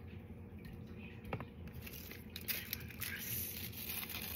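Soft squishing and rustling as garlic cloves and lemongrass stalks are handled and laid on raw, seasoned chicken in a plastic container, with a single light tap a little over a second in.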